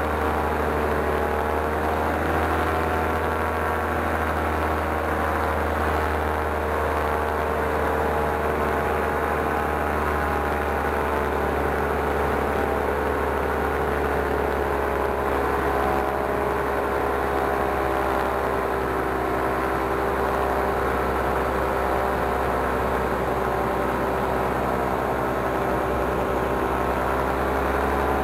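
Paramotor's two-stroke engine and propeller running steadily in flight, one continuous drone whose pitch eases down slightly through the middle.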